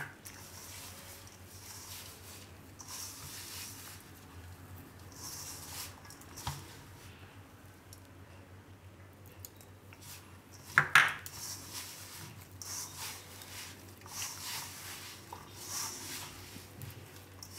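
A hand squeezing and kneading crumbly bajra (pearl millet) flour dough, bound with curd, in a stainless steel bowl: soft, irregular rustling and squishing. A louder knock against the bowl comes about eleven seconds in.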